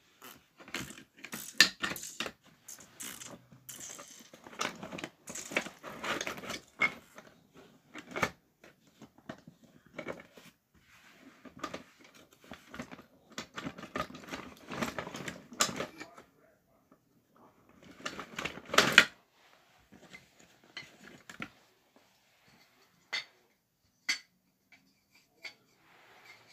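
Irregular clattering, clicks and rustling of toys being handled close to the microphone, with a dense louder burst about two-thirds through and only a few single clicks near the end.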